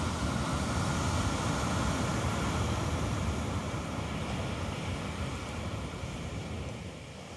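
Wind buffeting the microphone with a low, uneven rumble, over a steady wash of ocean surf.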